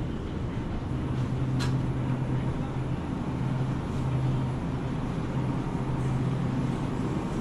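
Steady low hum of a supermarket interior alongside open refrigerated display cases, swelling and dipping slightly, with a single sharp click about a second and a half in.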